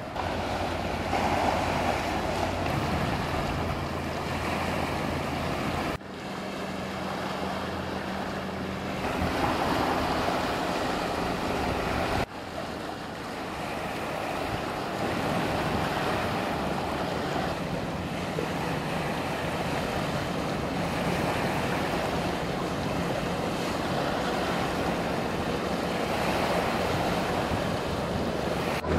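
A boat's engine drones steadily under rushing water and wind buffeting the microphone. The sound breaks off abruptly and resumes twice.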